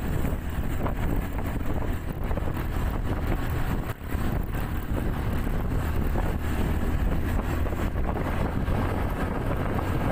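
Wind rushing over the microphone of a motorcycle riding at road speed, with the engine and road noise underneath. The sound dips briefly about four seconds in.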